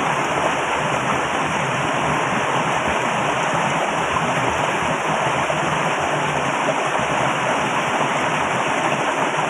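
Very loud, steady rush of flowing water.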